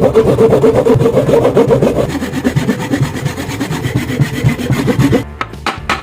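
Wood being sawn: a loud, fast run of rasping strokes that stops about five seconds in.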